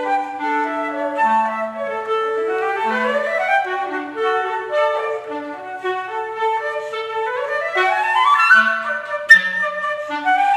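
Flute and B-flat clarinet duet, the two woodwinds playing interweaving melodic lines with fast upward runs, twice. A sharp click sounds about nine seconds in.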